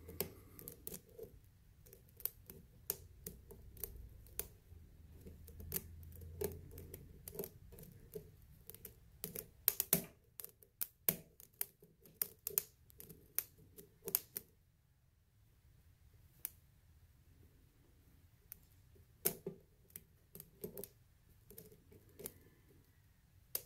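A lock pick working the pins of a six-pin lock under light tension, giving a run of small sharp clicks and taps. The clicks come thickly for the first half, stop for a few seconds, then pick up again sparsely near the end.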